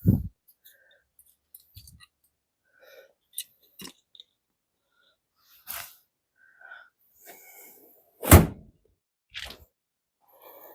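Hand work on parts in a car's trunk: scattered clicks, knocks and rustling, with a low thump at the start and a louder, sharper knock about eight seconds in.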